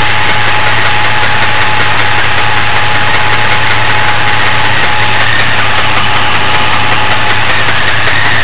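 Supercharged 4.3-litre V6 of a 2002 Chevrolet Blazer idling steadily, with a steady high whine over the engine note. It carries an odd noise that sounds like lifter or rocker-arm noise but is not as consistent; its cause is unknown.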